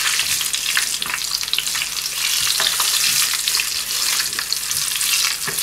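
Sliced garlic and cumin seeds sizzling and crackling in hot olive oil in a small frying pan: the tadka (tempering) for a dal. A slotted spoon stirs through the oil, with a few light knocks against the pan.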